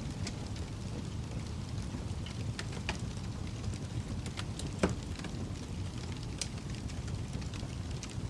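Wood fire crackling: a steady low rumble with scattered sharp pops, and one louder crack about five seconds in.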